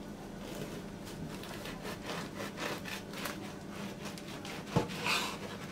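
Bread knife sawing back and forth through a freshly baked braided sweet bread with a browned, almond-flaked crust, in a run of short rasping strokes. A single sharp knock on the wooden cutting board comes a little before the end, followed by a louder rasp.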